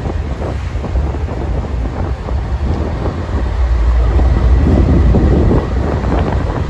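Union Pacific diesel freight locomotives passing close by, a heavy low engine rumble that grows louder about four seconds in. Wind buffets the microphone.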